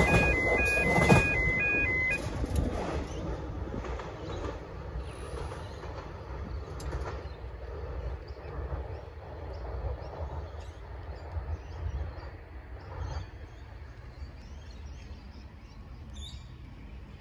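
Metro X'Trapolis electric train running away down the track: wheels on rail and a high whine of several steady tones, loud at first. The tones stop about two seconds in and the train fades to a low rumble. Faint bird chirps near the end.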